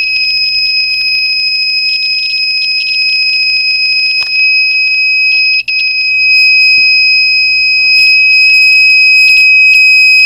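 Small alarm horn sounding one continuous, high-pitched steady tone, quite loud, with one brief break a little past halfway.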